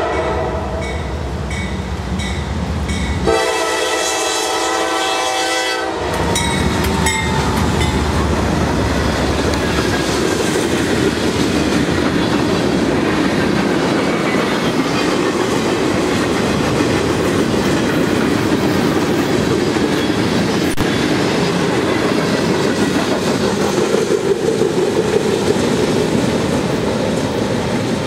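Freight train led by a GE D9-40CW diesel locomotive: the horn sounds for the grade crossing until about six seconds in, then the locomotives pass and the freight cars roll by with steady wheel-on-rail noise and clicking over the rail joints.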